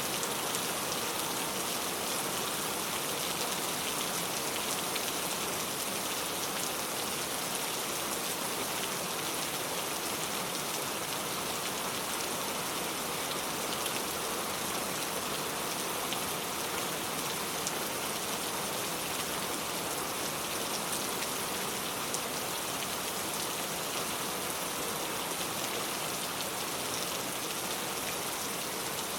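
Steady rainfall, an even hiss of rain with fine, close drop ticks on surfaces, holding at a constant level throughout.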